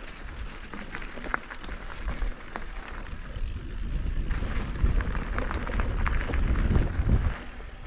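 Mountain bike riding a rough trail: tyres crunching over gravel and stones, with rapid clicks and rattles from the bike and wind rumbling on the microphone. It gets louder in the second half, then eases off just before the end.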